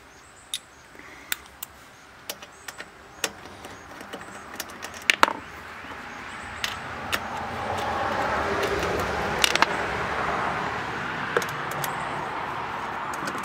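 Irregular metallic clinks and taps of a socket wrench on the generator's carburetor and panel bolts. A broader rushing noise builds from about six seconds in and eases off near the end.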